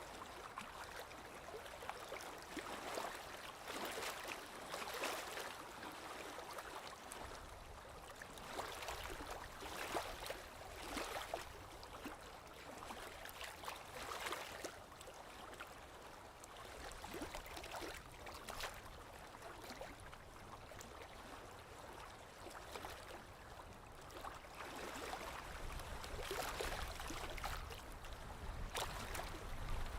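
Small lake waves lapping on the shore in an irregular rhythm of soft splashes a second or two apart. A low rumble swells near the end.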